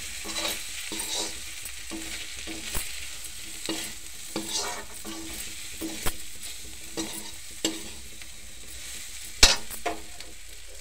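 Diced potatoes sizzling in hot oil in a metal kadhai while a spatula stirs and scrapes them, with sharp clicks of the spatula striking the pan every second or so, the loudest near the end.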